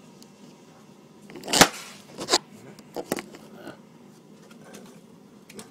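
A handful of short knocks and clatters from objects being handled and set down on a surface, the loudest about a second and a half in, then softer ones spaced out after it.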